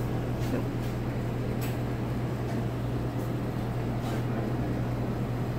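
Steady drone of a commercial kitchen's ventilation, with a constant low hum under an even rush of air, and a few faint clicks.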